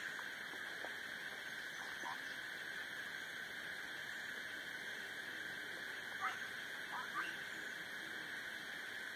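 Steady high-pitched outdoor drone, with a few short rising chirps, the loudest two about six and seven seconds in.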